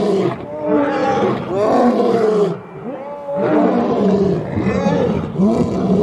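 Lion roaring: a run of loud, pitched calls, each about a second long, with a brief pause a little before halfway through.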